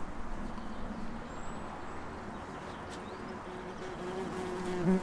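Steady outdoor background hum with a faint, engine-like drone that grows slightly louder near the end.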